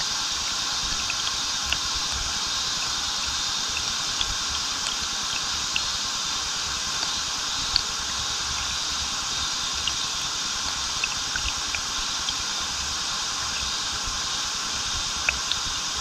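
Waterfall pouring steadily into a stream, a constant rushing of water, with scattered small splashes and drips of water hitting, the sharpest about halfway through and near the end.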